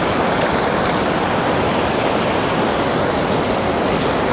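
Steady rushing of a stream over small waterfalls.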